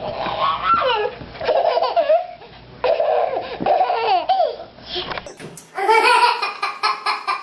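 A baby laughing in repeated bursts of high-pitched giggles. About five seconds in, the sound switches abruptly to another recording, where the laughter goes on in quick, even pulses.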